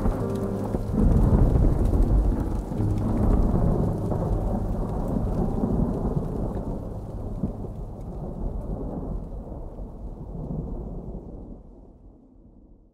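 A deep thunder-like rumble with a rain-like hiss, swelling about a second in, then fading out slowly to silence near the end.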